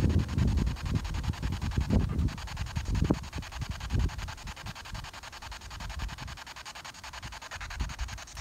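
Handheld spirit box sweeping rapidly through radio stations, giving a fast, evenly pulsing hiss of static. Under it there is low rumbling and thumping, mostly in the first half, and the whole sound fades gradually toward the end.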